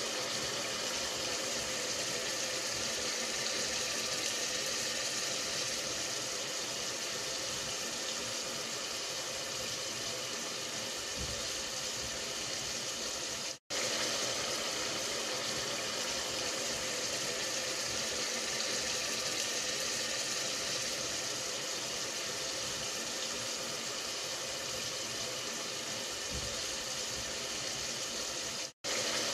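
Steady hiss with no rhythm or pitch, strongest in the high range. It cuts out for an instant about halfway through and again near the end.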